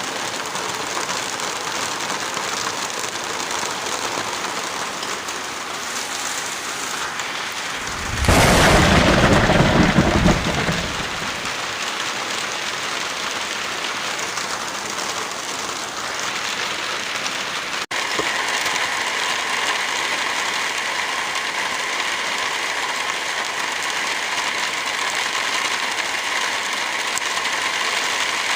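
Steady rain falling, with one loud clap of thunder about eight seconds in that rumbles for a couple of seconds. Around two-thirds of the way through, the rain's texture changes abruptly.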